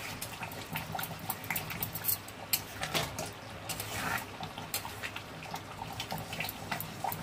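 A metal spoon stirring thick curry gravy in a metal kadai: irregular clicks and scrapes of the spoon against the pan, mixed with the wet sounds of the gravy simmering on the flame.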